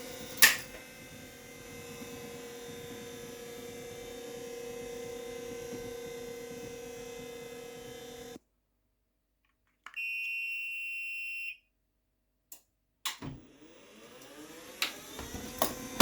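Brooks Acorn Slimline stairlift's electric drive motor running with a steady whine, with a sharp click just after the start. The sound cuts out, a high electronic beep sounds for about a second and a half, and after a few clicks the motor starts again, its whine rising in pitch as it speeds up.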